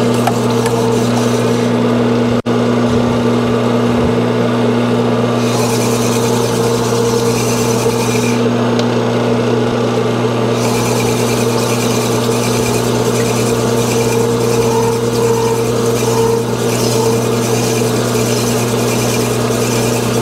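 Sunnen honing machine running with a steady motor hum, its oiled stones grinding inside the bore of a 1979 Suzuki TS125 cylinder as the cylinder is worked back and forth over the mandrel by hand. The bore is being honed out to size for the piston clearance.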